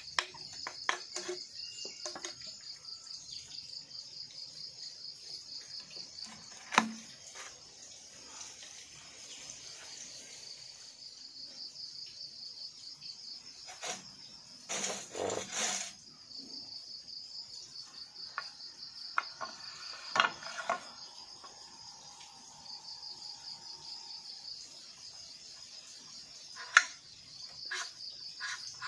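Insects trilling steadily in a fast, pulsing high buzz. Now and then sharp knocks and clacks sound out as green bamboo poles are cut and handled, the loudest a few seconds before the end.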